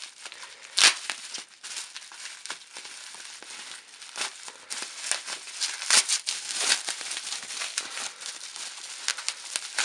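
Plastic packaging crinkling and crackling as it is handled and unwrapped, with a sharp snap about a second in.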